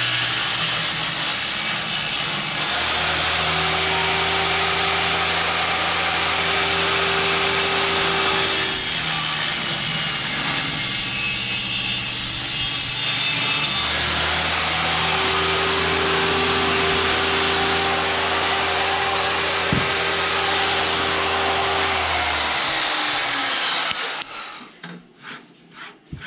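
Power saw cutting wooden boards, running steadily with a low hum that comes in for two long stretches as it cuts. It stops about two seconds before the end, leaving a few light knocks.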